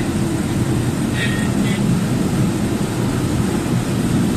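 Truck cab interior noise while driving: a steady low rumble of engine and road noise.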